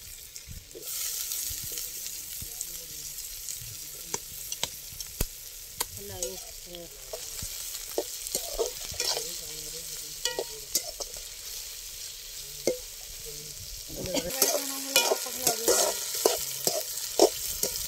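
Shallots, diced potato and green chillies sizzling in hot oil in a large hammered metal pan, stirred with a slotted metal spoon that clicks and scrapes against the pan. The stirring gets busier and louder near the end.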